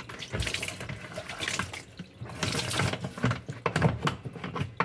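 Water running from a tap and splashing irregularly.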